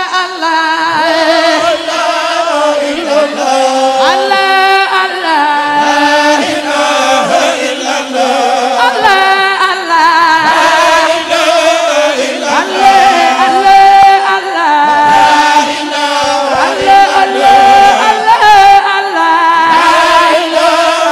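A woman singing an Islamic devotional chant through a microphone, in long ornamented melodic lines that slide and waver in pitch.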